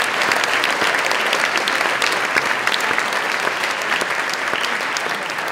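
Audience applauding: a dense, steady clatter of many hands clapping, easing slightly toward the end.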